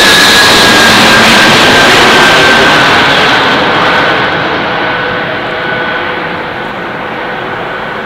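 Antonov An-124-100's four Progress D-18T turbofans at takeoff power as the freighter passes overhead and climbs away: a loud jet roar with a high whine that drops slightly in pitch. From about three seconds in the roar fades and loses its high end as the aircraft moves off.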